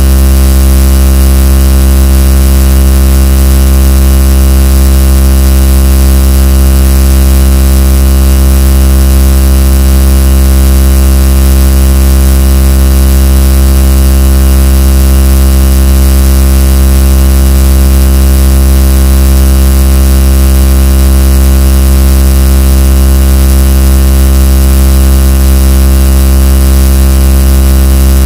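A very loud, unchanging droning noise: a deep hum under a dense stack of fixed tones and hiss, distorted at full level.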